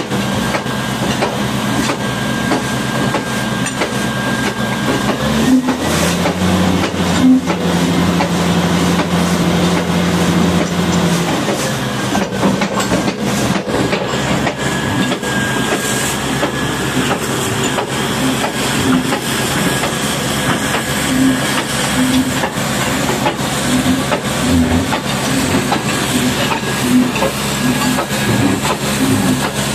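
High-pressure water spray hissing over the steady hum of a running engine during a bulldozer wash. A deeper, stronger engine note joins for about five seconds near the start, then drops away.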